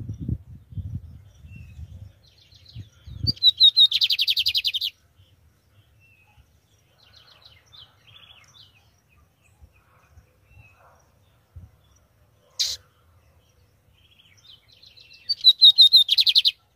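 Lined seedeater (bigodinho) singing: two loud song phrases, about three seconds in and again near the end, each a fast run of high notes ending in a rapid buzzy trill, with softer chirps between. A sharp click about twelve and a half seconds in.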